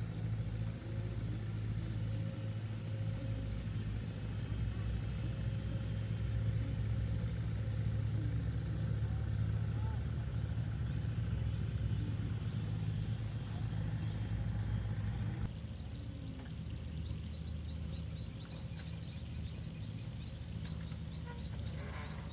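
A steady low motor drone with a constant pitch. About two-thirds of the way in the sound changes, and a quick run of short high chirps repeats several times a second over the drone until the end.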